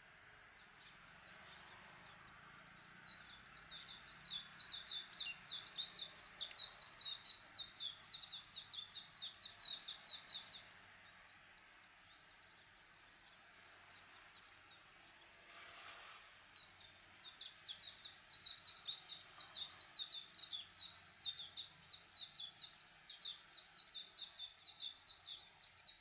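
Japanese white-eye singing: two long, rapid, twittering warbles of high notes, the first starting a few seconds in and lasting about eight seconds, the second starting a little after halfway and running about nine seconds.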